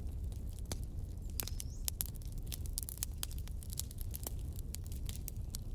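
Wood fire crackling in a metal fire pit, with frequent irregular pops and snaps over a steady low rumble.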